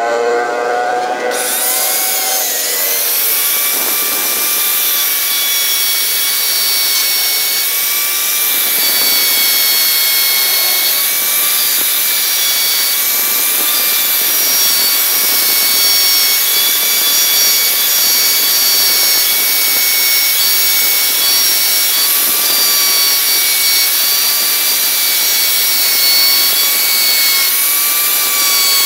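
Electric plunge router running at speed, its small pointed carving bit cutting a design into a hardwood board. A steady high whine with a slight waver in pitch as the bit works through the wood.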